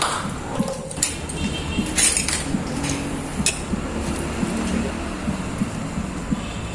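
A few sharp clinks and knocks, four or so in the first three and a half seconds, the loudest about two seconds in, over a low steady background noise.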